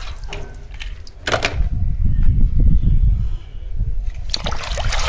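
A low rumble with a few faint clicks, then water splashing and trickling in a basin about four seconds in as a small plastic toy truck is dipped and washed.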